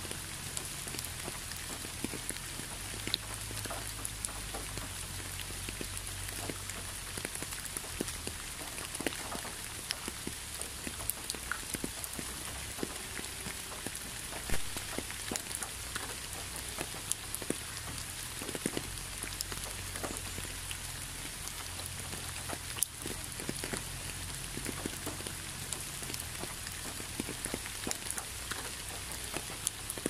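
Steady rain falling: an even hiss with many separate drop hits, a couple of them louder.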